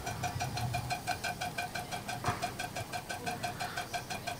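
1946 Careast toy live steam engine running fast and steady under steam, its cylinder giving an even, rapid ticking beat several times a second.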